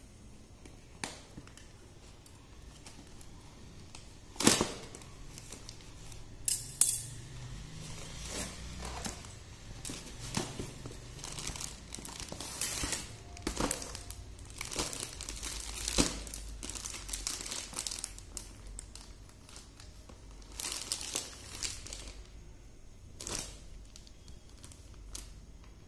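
A cardboard box and its plastic wrapping being handled: on-and-off crinkling and rustling with several sharp snaps and taps, as the box is cut open and a saree in a plastic cover is lifted out of it.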